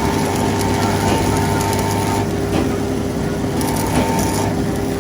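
A workshop machine running with a steady hum, with a few light clicks over a noisy background.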